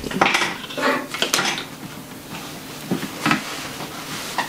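An XQD memory card and its small hard plastic case being handled: a string of light clicks and clatters at uneven intervals.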